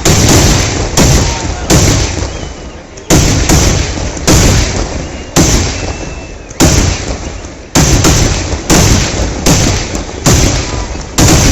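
Fireworks exploding in quick succession: loud, sharp bangs about one a second, some closer together. Each bang fades in a rumbling echo before the next.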